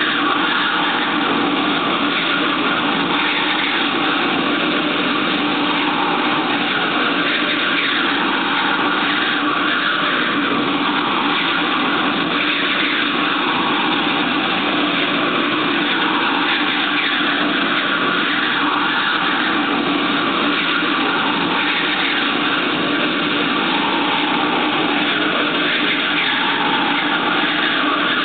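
A steady, machine-like drone played through stage loudspeakers as the accompaniment to a dance, loud and unchanging, with no clear beat or melody.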